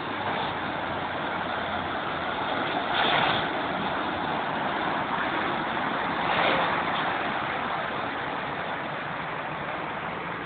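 Cars driving through a flooded street, their wheels pushing through deep water with a steady splashing rush. Two louder swells of splashing come about three and six and a half seconds in as cars pass close.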